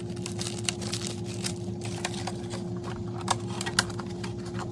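Scattered small clicks and taps of hard plastic parts, as an RC truck's LED headlight unit and its wires are handled and fitted into a plastic body shell, over soft background music holding a steady note.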